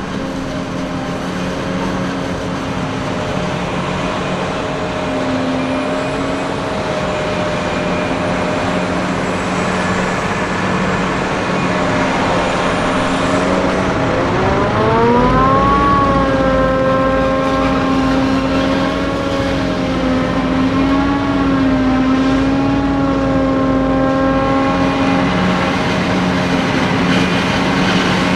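An engine running steadily. About halfway through its pitch rises quickly as it speeds up, then holds at the higher speed.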